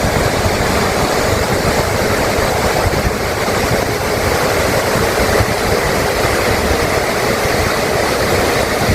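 Floodwater rushing: a loud, steady rush of fast-moving water.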